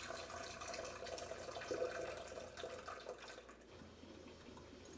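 Water poured from a glass coffee pot into a Cuisinart drip coffee maker's water reservoir, dying away after about three seconds.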